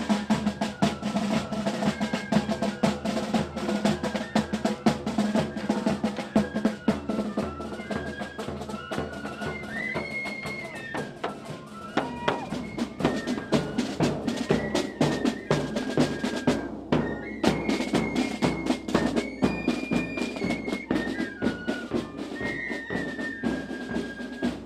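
Wren Boys' street band of drums and tin whistles playing a tune: bodhráns and a bass drum beat steadily under a high whistle melody. About halfway through the music changes to another tune.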